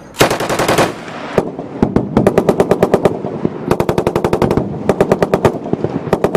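Machine guns firing bursts of automatic fire: about five bursts of rapid, evenly spaced shots with short pauses between them, and a single shot about a second and a half in.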